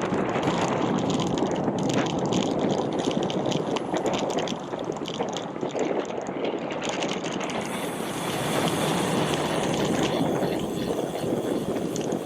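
Wind rushing over the microphone of a bicycle rider on the move, an unsteady rush with no voices, growing brighter and hissier about eight seconds in.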